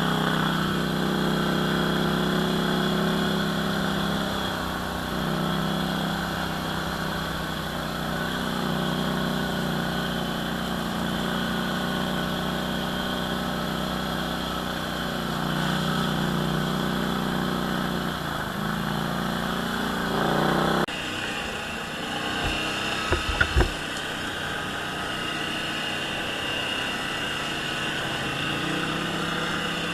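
ATV engine running on the trail, its revs rising and falling. The sound changes abruptly about two-thirds of the way through, and a few sharp knocks follow.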